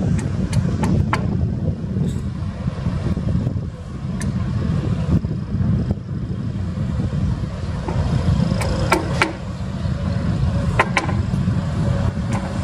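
Caterpillar crawler bulldozer's diesel engine running with a steady low rumble as it works the slope, with sharp metallic clanks and squeaks from its steel tracks, several of them grouped in the first second or so and more in the second half.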